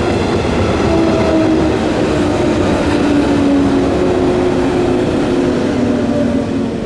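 JR 115-series electric train pulling into the station and slowing, its running noise carrying a few faint tones that slowly fall in pitch. It grows quieter near the end as the train comes toward a stop.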